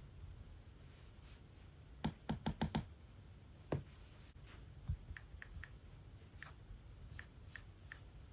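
Light tapping from a tablet and stylus being handled: a quick run of five knocks about two seconds in, two more single knocks, then a few faint ticks.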